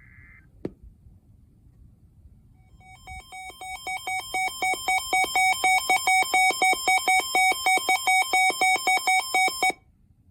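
Weather radio sounding its alert alarm for an incoming EAS warning: a rapid train of electronic beeps that grows louder over about two seconds, holds steady, then cuts off suddenly. Just before the beeps there is the tail of a short digital data burst and a single click.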